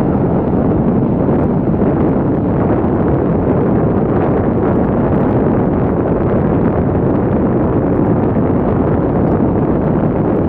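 Avro Vulcan XH558's four Rolls-Royce Olympus turbojets in flight, a loud steady jet rumble, mixed with wind on the microphone.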